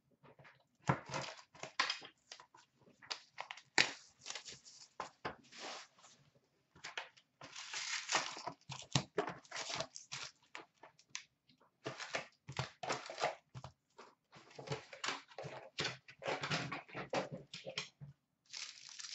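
A 2013-14 Upper Deck SP Authentic hockey card hobby box being opened and its packs handled and torn open: a string of short, irregular ripping, crinkling and rustling noises.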